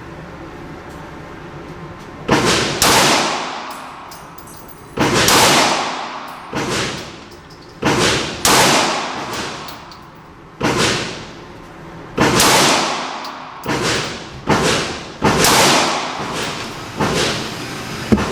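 Glock 26 Gen 4 9mm pistol firing a string of about fifteen shots, starting about two seconds in. The shots come at an uneven pace, often in quick pairs, and each one trails off with an echo.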